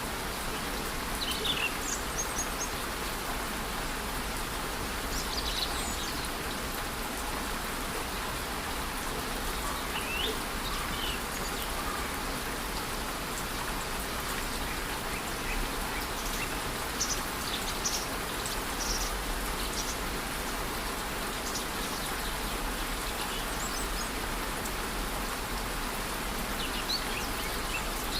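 Steady hiss of rain and falling water in a rainforest, with short high bird chirps now and then, about eight or nine brief calls scattered through.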